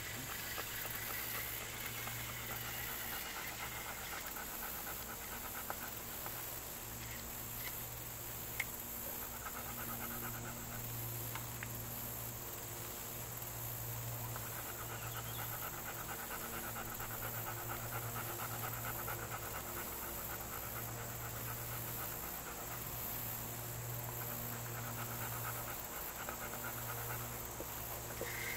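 Electric fishing reel's motor winding in line in stretches of a few seconds, a buzzing whine that stops and starts, over a steady low hum.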